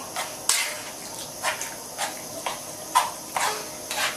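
A metal spoon stirring a thick, creamy chicken filling in a frying pan, scraping the pan in short strokes about twice a second.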